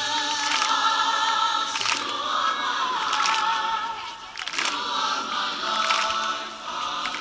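A choir singing, amplified across the open field, with a few sharp knocks or crackles scattered through it.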